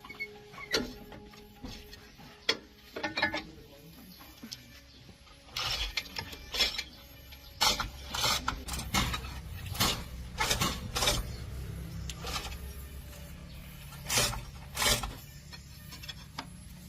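Metal clinks and knocks of hand tools working on a truck gearbox, about a dozen sharp strikes scattered through, with a low mechanical rumble running from about six to twelve seconds in.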